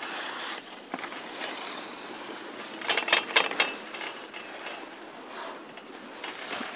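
Chairlift running under a steady rushing noise, with a short spell of rapid mechanical clicking and clattering about three seconds in and a few single clicks later.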